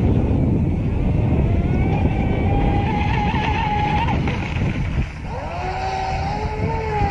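Atomik Barbwire XL RC speedboat running fast on a 3S LiPo, its electric motor giving a high, steady whine that creeps up in pitch. About five seconds in it drops off briefly, then the whine glides back up as the throttle is opened again, over a low rumble of wind on the microphone.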